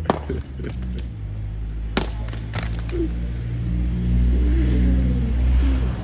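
Steady low rumble of a vehicle engine running, with two sharp knocks about two seconds apart and a few lighter clicks from demolition work on brick walls.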